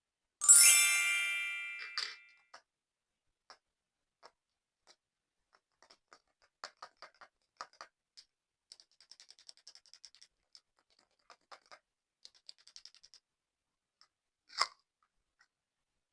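A bright ringing ding about half a second in, fading over about a second and a half, followed by scattered soft clicks and crackles of slime being handled, with one sharper click near the end.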